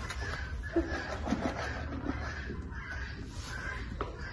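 Farm animals calling in a barn: a few short honk-like calls about a second in, over steady low background noise.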